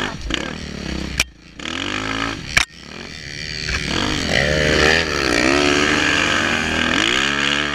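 Dirt bike engine heard from the rider's helmet, revs rising and falling as it is ridden hard on a sandy trail, with two sharp knocks about one and two and a half seconds in. The engine climbs and stays high from about three seconds in.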